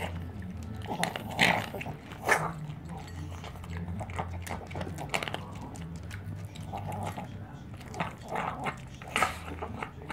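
Small dog eating dry kibble from a bowl: quick crunching and clicking of kibble in its teeth and against the bowl, with a few louder bursts about one and a half and two and a half seconds in and near the end.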